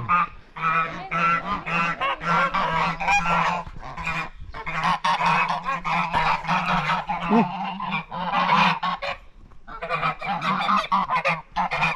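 A flock of domestic geese honking loudly and repeatedly, many calls overlapping, as they crowd in wanting carrots. The calling breaks off briefly twice.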